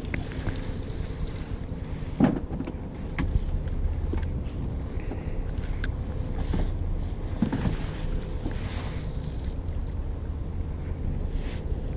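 A fishing boat's engine running with a steady low rumble and a faint constant hum, under wind on the microphone. A few short clicks and knocks sound on top.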